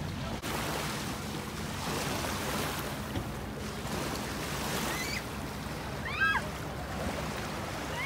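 Steady wash of wind and lapping lake water over a low steady hum. About six seconds in come a few short, high-pitched squeals from a small child's voice.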